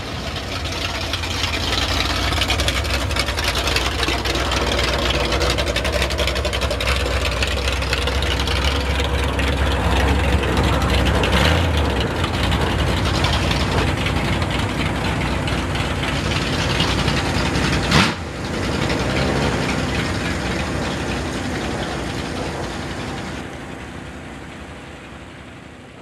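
Ford mega mud truck's V8 running through open headers as the truck rolls along slowly, with one sharp crack about two-thirds of the way through. The engine sound fades out near the end.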